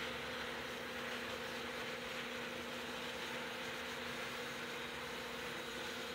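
Small electric model trains running around a track loop: a steady whir of their motors and wheels on the rails, with a constant low hum under it.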